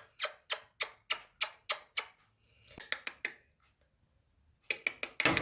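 A run of sharp, evenly spaced clicks, about three a second, for about two seconds, then a few fainter ones and another quick cluster near the end.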